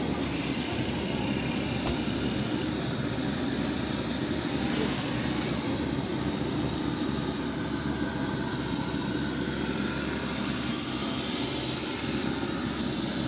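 Steady low rumble of outdoor street background noise, with no single clear event standing out.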